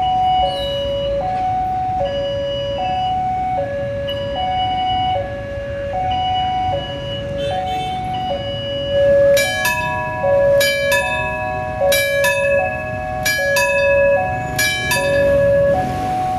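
Railway level-crossing warning alarm sounding its repeating two-tone signal, a lower and a higher note alternating, each held for under a second: the warning that a train is approaching. About nine seconds in, sharp ringing strikes in pairs join it, about one pair every second and a half.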